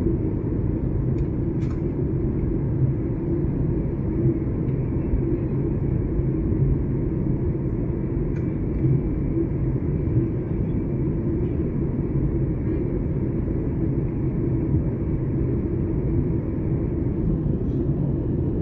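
Steady cabin noise of a jet airliner in flight: a constant rumble and rush of engines and airflow with a low hum.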